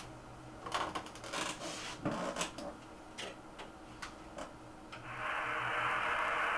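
A scatter of clicks and rubs from handling at the radio desk, then about five seconds in the steady hiss of a ham radio receiver comes up through its speaker: band noise on the 20-meter band, louder than the handling.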